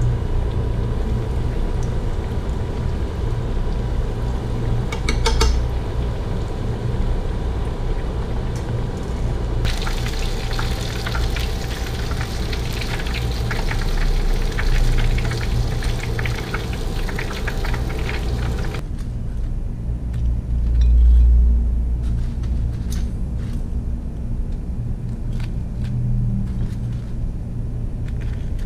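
Breaded squid pieces deep-frying in a pan of hot oil, bubbling and sizzling over a steady low rumble, with a louder crackling stretch in the middle. Near two-thirds of the way in the sizzle cuts off abruptly, leaving the rumble and a few light clicks.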